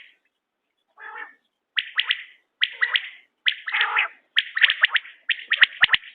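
Quail calling: short groups of two or three sharp, high notes repeated roughly once a second, coming closer together in the second half. A few sharp clicks sound near the end.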